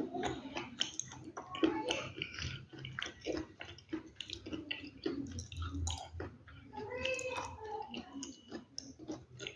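Dry earthy material crunching and crackling in rapid, irregular cracks.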